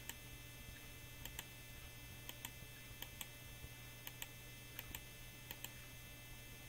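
Faint computer mouse clicks, about a dozen at irregular intervals, over a steady low electrical hum.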